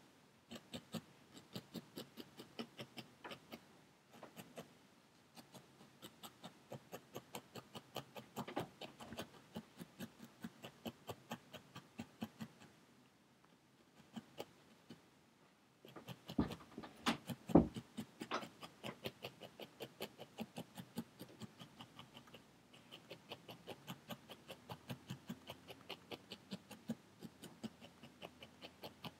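A barbed felting needle stabbing rapidly through wool into a foam pad, about four or five pokes a second in runs with short pauses, tacking one piece of wool onto a needle-felted pumpkin. A run of louder strokes comes a little past halfway.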